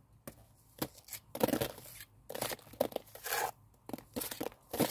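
Lime mortar being scraped off a hawk and pressed into a void between stones with a small steel trowel and gloved fingers: a run of short, gritty scrapes.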